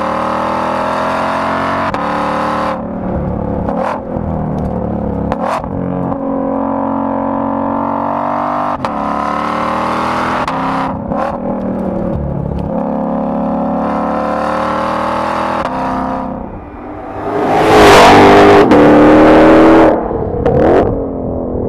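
2020 Ford Mustang Shelby GT500's supercharged 5.2-litre V8 and exhaust under hard acceleration, heard close to the rear of the car. The revs climb and break off again several times with quick upshifts of the dual-clutch gearbox. Near the end comes the loudest part, as the car passes close by and drives away.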